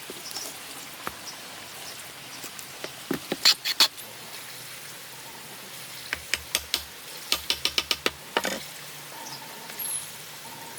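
Light, sharp taps and knocks from carpentry hand work on wood, scattered at first, then in quick runs of four or five a second.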